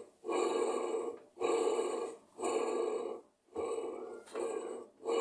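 Electrolux washing machine motor turning back and forth in short strokes, about one a second, each stroke a grinding noise from its rotten bearing, the cause of the machine's loud noise during the wash cycle.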